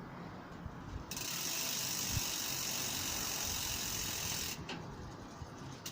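Bicycle chain running over the rear cassette and derailleur jockey wheels as the pedals are turned by hand, with the ratcheting of a noisy freewheel hub. The chain is on the top gear while the high limit screw is set, aiming for it to run silently without chatter. A steady hiss comes in about a second in and drops away shortly before the end.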